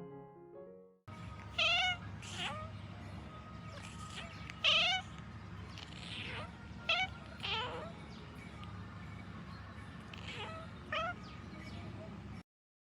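Domestic cat meows: about eight short, wavering meows spaced irregularly over some ten seconds, over steady low background noise.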